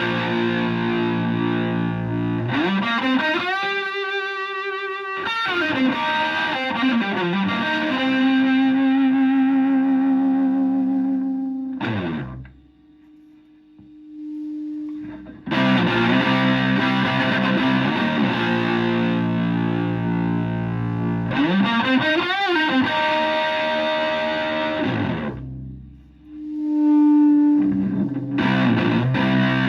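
Stratocaster electric guitar played through a treble booster pedal with a Range control into a Fender Twin Reverb–style amp, giving a bright, overdriven tone. Chords and lead phrases with string bends, twice thinning to a single sustained note, at about half-way and near the end.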